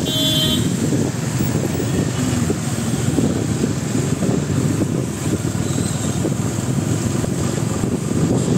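Wind rushing over the microphone on top of the steady running noise of a moving two-wheeler on a wet road. A short, high-pitched beep sounds near the start.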